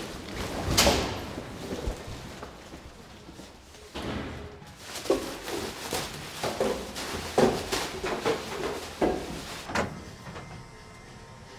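A door slams shut about a second in, then a run of irregular thumps and knocks follows from about four seconds in.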